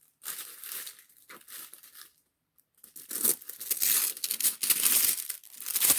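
Tissue paper being torn and crinkled by hand as it is pulled off a cardboard box: scattered rustles at first, a short pause, then steadier, louder crinkling from about halfway through.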